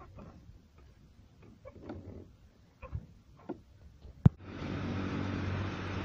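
Faint, irregular crunches and handling clicks, then a sharp click about four seconds in. After it a steady, louder outdoor rumble with a low hum sets in.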